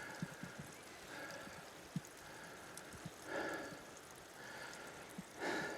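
Walking footsteps on a track, with two loud out-breaths from the hiker, about three and five and a half seconds in.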